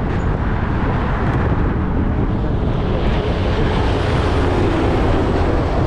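Wind rumbling on the microphone and road noise from a moving e-bike, with traffic noise swelling through the middle as a vehicle passes.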